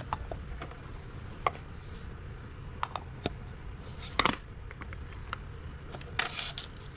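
A few light, scattered clicks and taps from small tools and parts as a wristwatch is handled during reassembly.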